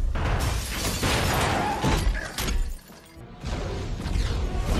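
Action-film battle soundtrack: orchestral score mixed with an explosion and shattering, crashing debris. The din drops away briefly about three seconds in, then resumes.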